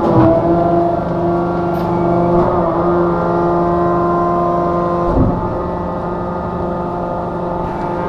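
Hydraulic pile-jacking machine running while pressing a precast concrete pile: a steady mechanical hum with a held whine. There is a clunk about five seconds in, after which the whine fades somewhat.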